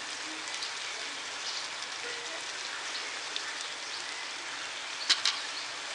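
Masala paste with chopped garlic and hing frying in oil in a pan: a steady sizzle, with a couple of sharp clicks about five seconds in.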